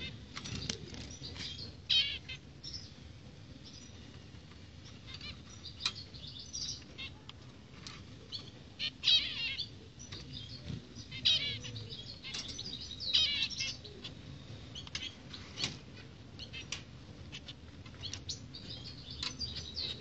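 Caged zebra finches calling in short bursts of quick high chirps, with the flutter of wings and small clicks as the birds hop and fly between perches.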